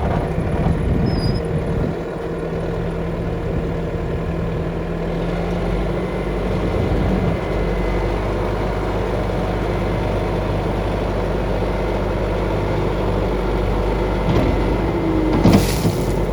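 Bobcat S650 skid steer's Kubota turbo-diesel engine running steadily, with a single sharp clunk about a second before the end.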